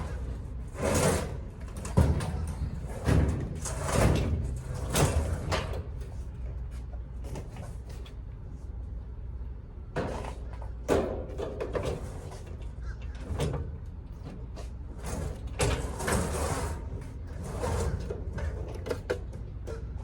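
Irregular bangs, scrapes and rattles of heavy appliances and doors being handled, about a dozen over the stretch and densest in the first half, over a steady low hum.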